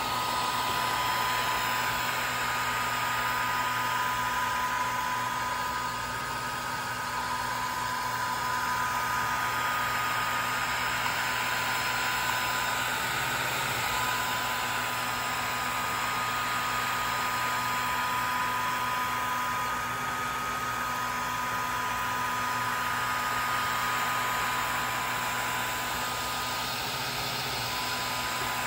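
Swiitol 18-watt diode laser engraver running as it engraves lines into MDF: a steady fan whoosh from the laser head with two faint steady high whine tones over a low hum.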